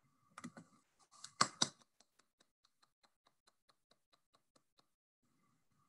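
Sharp clicks and knocks close to the microphone, loudest about a second and a half in, then a regular run of faint ticks about five a second that fades and stops near the end.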